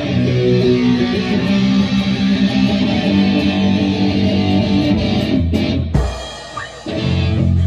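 A rock band playing live, electric guitar and drum kit together. The playing drops away briefly about six seconds in, then the band comes back in.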